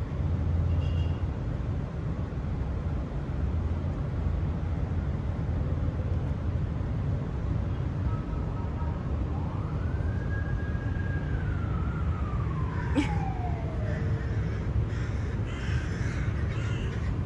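Outdoor background with a steady low rumble. About halfway through, a distant siren rises, holds, and slowly falls away once. Crows caw near the end.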